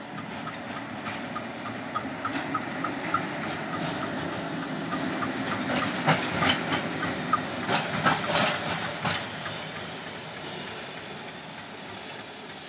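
ALCO diesel locomotive passing close by, its engine growing louder and then fading as it moves away. A cluster of sharp clicks and knocks from the wheels over rail joints comes about halfway through, where it is loudest. A fast regular ticking runs in the first few seconds.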